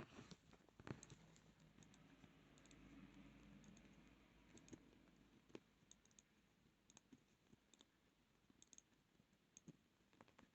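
Faint, irregular small clicks from handling a vintage 1970s Timex wind-up watch, fiddled with one hand.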